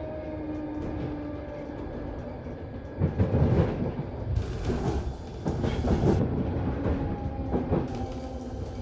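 London Underground 1972 tube stock train running between stations, heard from on board. A faint steady whine fades over the first couple of seconds, then the wheels clatter over rail joints in irregular thumps. A hiss lasts about two seconds midway.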